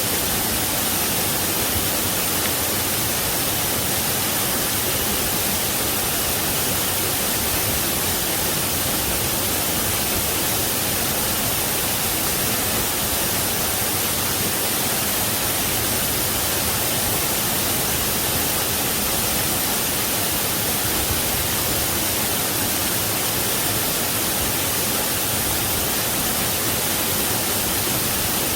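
Waterfall water falling and splashing in a steady, even rush with no breaks or changes.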